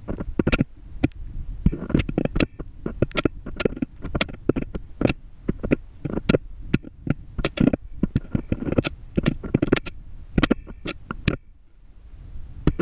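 Homemade GoPro rig knocking and scraping against the borehole wall as it is lowered down the bore: irregular clicks and knocks, several a second, with a short lull near the end.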